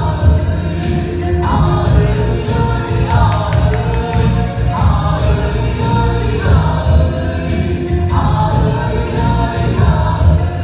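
A choir of several voices singing phrased lines over a loud backing track with a heavy bass.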